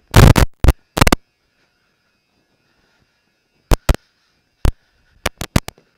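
Clip-on lavalier microphone knocking and rubbing against the wearer's shirt as he walks: sharp, loud bumps in clusters, a quick run of them near the end, with a faint steady hum in the quiet stretch between.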